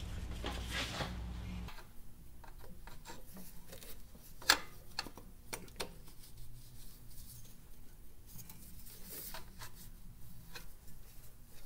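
Rubber serpentine belt being worked by gloved hands onto the engine's pulleys: light rubbing and scraping with scattered small clicks, and one sharper click about four and a half seconds in.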